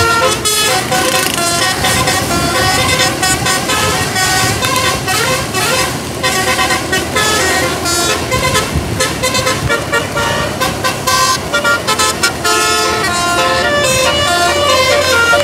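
A bus's multi-tone musical air horn (telolet) playing a quick tune of short notes, several tones sounding together and changing pitch every fraction of a second, over road traffic noise.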